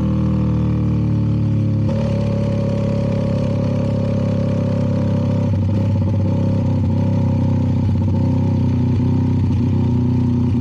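CFMoto 300NK's single-cylinder engine, fitted with an aftermarket KO exhaust, running steadily under way, with a small step in engine pitch about two seconds in.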